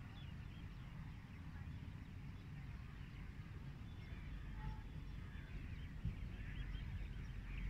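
Birds chirping and calling, many short overlapping chirps, over a steady low rumble.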